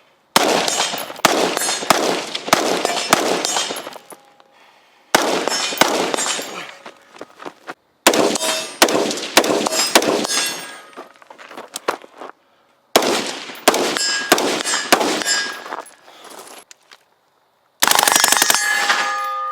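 AR-15 rifle firing rapid strings of shots at steel targets, which ring with each hit. There are about five strings separated by pauses of a second or so.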